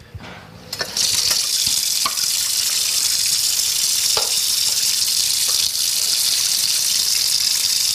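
Water starts running about a second in and then pours steadily, like a tap or shower turned on full, with a few light knocks over it.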